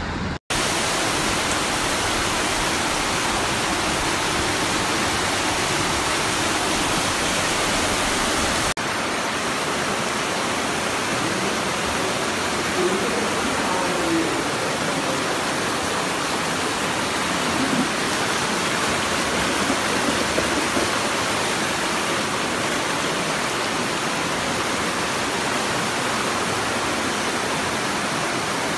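Muddy floodwater rushing down a city street in a torrent, a loud steady rush of water that does not let up.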